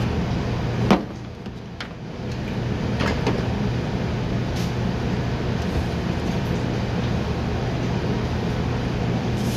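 Steady hum of a commercial kitchen's ventilation, with a sharp knock about a second in and a few lighter clatters of metal pans being handled.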